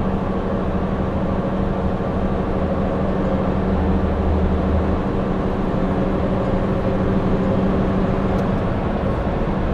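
A heavy diesel truck running at steady cruising speed, heard from inside the cab, with engine drone and tyre and road noise. The road noise is inside a road tunnel.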